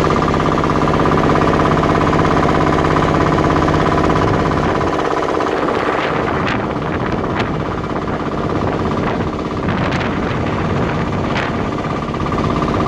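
A small tourist boat's motor running with a steady drone. It eases off about five seconds in and picks up again near the end.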